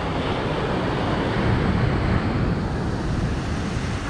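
Steady rushing noise, strongest in the low end: wind buffeting the microphone mixed with breaking surf.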